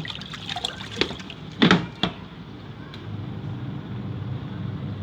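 Sharp twin-tub washing machine running with a steady motor hum and water sloshing in the tub. A few knocks come through, the loudest about a second and a half in.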